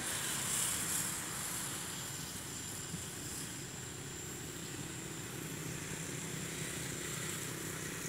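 A small quadcopter drone flying overhead, its propellers giving a steady buzz with a thin high whine and a hiss over it.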